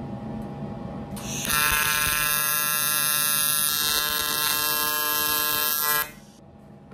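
AC TIG welding arc on aluminum tubing: a loud, steady, harsh buzz that starts about a second in and cuts off about a second before the end.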